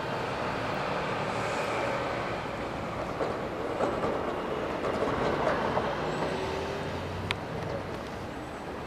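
Steady outdoor vehicle rumble with scattered small clicks in the middle and one sharp click near the end.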